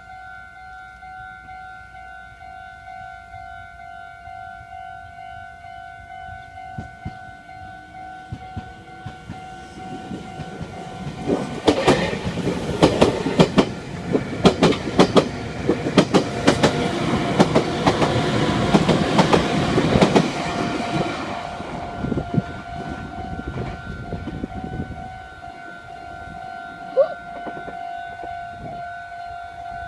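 Level crossing warning bell ringing in a steady repeating two-tone clang, while a Meitetsu electric train passes over the crossing from about ten seconds in, its wheels clattering over the rail joints for about ten seconds before it fades and the bell rings on.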